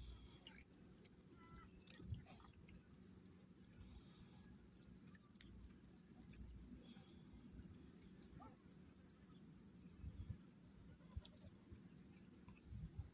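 Faint bird calls: short, high chirps that sweep downward, repeated about once a second.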